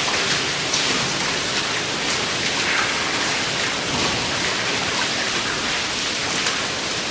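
Water pumped up from a sump pouring from a plastic pipe and splashing steadily onto a deck as it is rinsed down, a continuous rain-like hiss.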